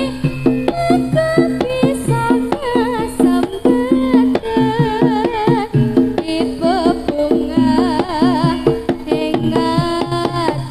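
Live Javanese jaranan music: fast hand-drum strokes and repeating pitched percussion under a wavering melody line with heavy vibrato.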